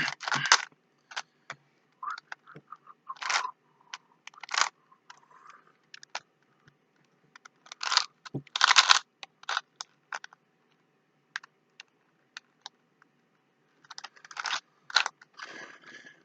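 Rubik's Cube being turned by hand: plastic layers clicking and scraping in short bursts of twists, with single clicks in between.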